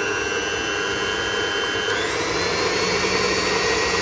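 Electric stand mixer running, its motor whining steadily as the beaters whisk egg and caster sugar. The whine steps up slightly in pitch about halfway through.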